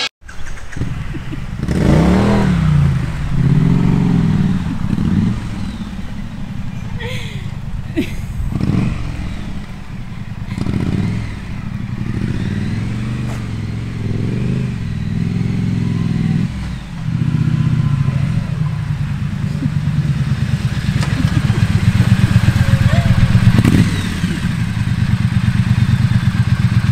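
Triumph Street Scrambler's 900 cc parallel-twin engine running, revved up and down again and again, louder near the end.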